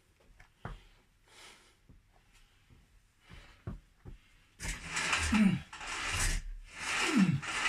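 A man's heavy, straining exhalations during a workout rep: about two-thirds of the way in, two loud groaning exhales about two seconds apart, each falling in pitch, with a breath between. Before that, only soft breathing and a few light clicks.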